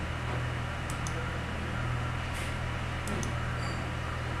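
Room tone: a steady low hum with an even hiss, and a few faint, short clicks about a second in and again around three seconds in.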